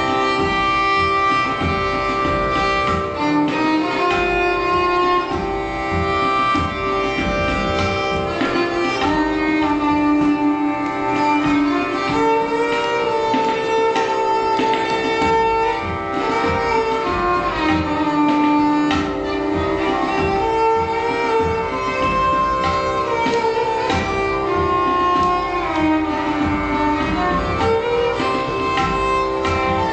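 Violin playing Raag Kafi in Hindustani classical style, held notes sliding between pitches, with tabla accompaniment keeping a steady stream of drum strokes.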